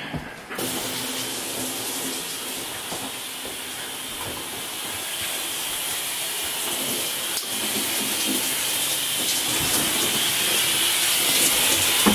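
Shower running: a steady rush of water spray that starts about half a second in.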